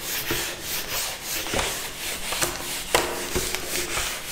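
A whiteboard duster being rubbed over a whiteboard in repeated back-and-forth wiping strokes, erasing marker writing, with a few light knocks against the board.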